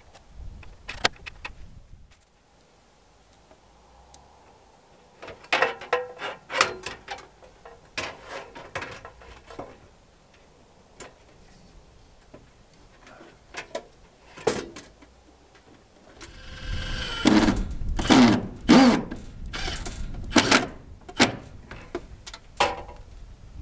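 Scattered metallic clinks, taps and clatter of stainless chimney pipe and wall-bracket parts being handled and fitted against the wall, coming in two busy stretches, about a quarter of the way in and again past the middle.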